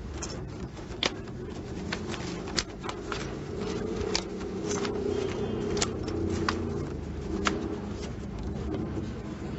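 Playing cards being dealt onto a cloth-covered table: a dozen or so short, sharp card snaps and clicks at irregular intervals over a steady low room hum.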